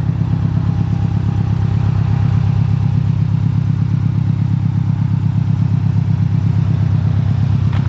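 2011 Subaru WRX STI's turbocharged flat-four engine running at a steady idle, a continuous low rhythmic exhaust pulse.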